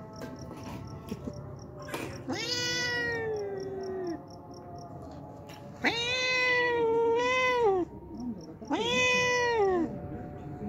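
Tabby-and-white stray cat meowing close up: three long, drawn-out meows, about two seconds in, around six seconds and near the end, each falling in pitch at its close. A hungry cat asking for food.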